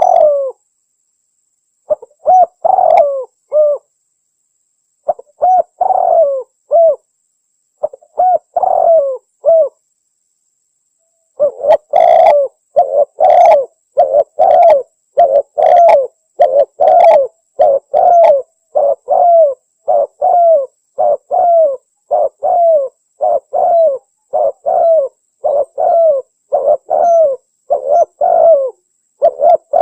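Spotted dove (tekukur) cooing in the Javanese 'anggunan' song style. Short groups of a few low coo notes are separated by pauses, then from about eleven seconds in comes an unbroken run of coos at about two notes a second.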